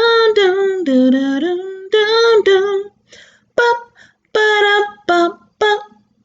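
A woman singing without accompaniment: long held and gliding high notes, then from about three seconds in a string of short separate sung notes with pauses between them.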